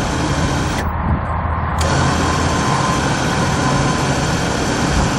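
Bulldog 2,500 lb electric ATV winch motor and its planetary gearbox whining as it spools in its synthetic rope under load, pulling the ATV along. It stops a little under a second in and starts again about two seconds in, as the momentary switch is let off and pressed again, over a steady low hum.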